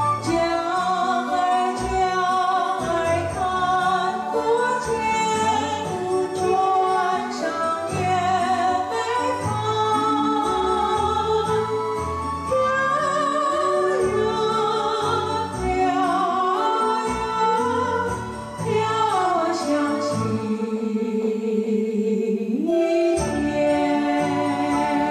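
Music: a sung waltz-time song with a vocal melody over instrumental backing; one long held note slides down around two-thirds of the way through and then rises again.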